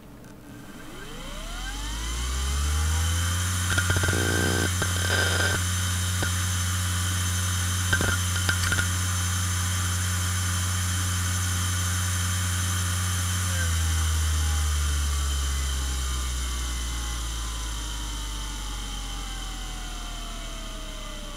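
IBM Travelstar 25GS (DARA-225000) five-platter 2.5-inch hard drive spinning up with a rising whine, then idling at 5411 rpm with a steady hum, with short rattles of head seek clicks about four and eight seconds in. About 13 seconds in it powers down and the spindle spins down with a slowly falling whine.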